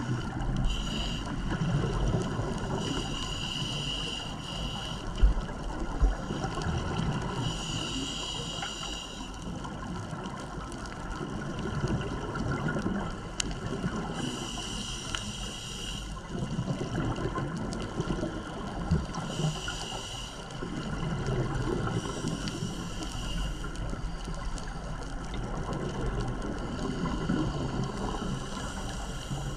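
Scuba diver breathing through a regulator, heard underwater: every few seconds a breath comes with a high, thin hissing tone lasting a second or two, over a low, constant bubbling rumble of exhaled air.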